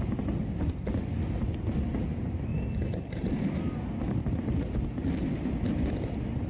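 Fireworks going off: a dense, continuous low rumble of bursts scattered with many sharp crackles.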